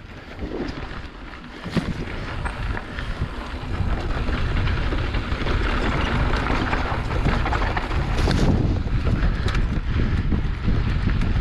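Wind buffeting the microphone over the rolling noise of a mountain bike's knobby tyres on a dirt trail, getting louder over the first few seconds as the bike gathers speed. A few short knocks from the bike run through it.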